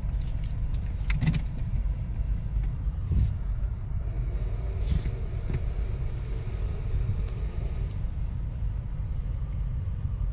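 Automatic car wash heard from inside the car: the brushes and water spray working over the car make a steady low rumble, with a few scattered knocks and taps against the body.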